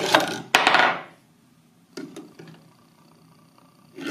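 Steel balls rolling down a curved wooden tautochrone ramp and knocking against its wooden end stop about half a second in. A brief knock follows at about two seconds, and near the end the balls start rolling down the track again.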